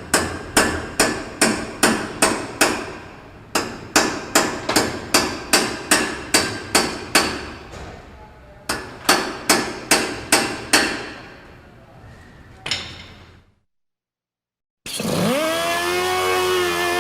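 A hammer striking metal in quick, ringing blows, about three a second, in three runs with short pauses between them, then one last blow. After a brief gap a motor starts up near the end, its whine rising quickly and then running steadily.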